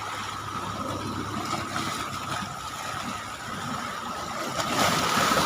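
Seawater waves washing and splashing against the shore at high tide, with a rush that swells about five seconds in. A faint steady high tone runs underneath.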